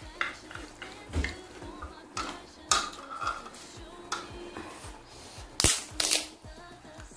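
Utensils clinking and scraping against a bowl while noodles are eaten: a string of short, sharp clicks at uneven intervals, the loudest a little before the end.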